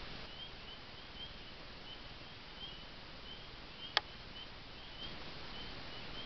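Faint night chorus of short high peeps, several a second and irregularly spaced, over a quiet background, with one sharp click about four seconds in.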